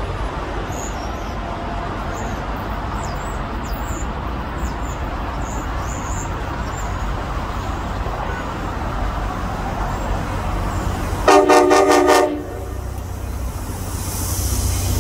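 CTrail GP40-3H diesel locomotive approaching with its train, sounding one short horn blast about eleven seconds in. Its engine rumble grows louder near the end as it closes in. A steady background of rail and traffic noise runs underneath.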